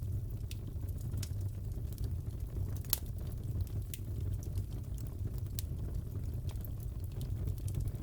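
Fireplace crackling: a steady low rumble of burning with scattered sharp pops and snaps, the loudest pop about three seconds in.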